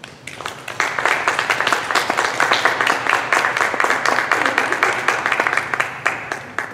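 Small audience applauding after a speech. The clapping builds up within the first second, holds steady, and tails off near the end.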